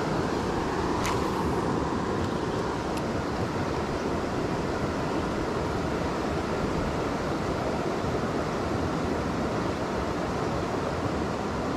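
Flooded creek water rushing steadily, with a couple of faint ticks about one and three seconds in.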